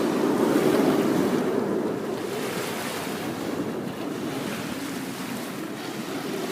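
Jet engines of the Snowbirds' CT-114 Tutor jets passing by, a broad rushing sound that fades steadily as the formation moves away.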